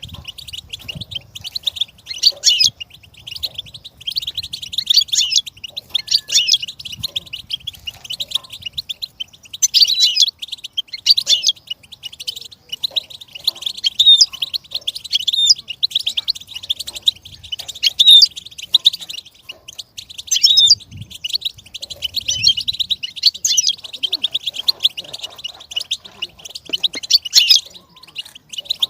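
Goldfinch singing: a fast, unbroken twittering song of rapid high-pitched chirps and trills.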